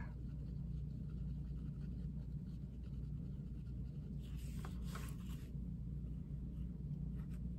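Colouring pencil rubbed in small circles on cloth, a soft scratching that is strongest for a second or so about halfway through, over a low steady hum.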